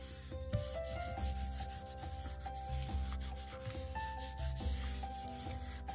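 Hands rubbing paper against the file-folder board in a dry, scratchy friction sound, over soft background music with a slow melody.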